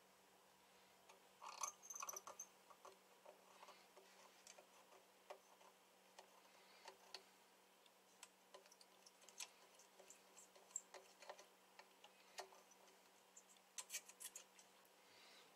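Faint, irregular small clicks and ticks as a test probe's metal tip touches transistors and solder joints on a CB radio amplifier's circuit board, with a cluster of clicks near the start and another near the end. A faint steady low hum sits beneath.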